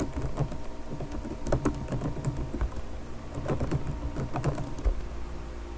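Computer keyboard typing: irregular quick key clicks as a terminal command is entered, over a steady low electrical hum.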